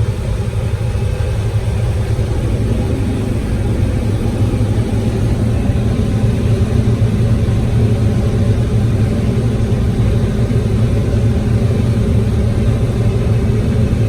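Combine harvester's diesel engine running steadily under load: a loud, even drone with a strong low hum.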